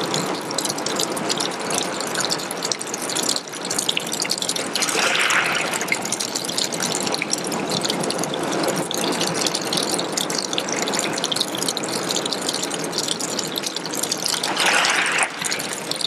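Small waterfall of water trickling and spattering down a rock face onto pebbles: a steady splashing with many small droplet clicks, swelling briefly louder a couple of times.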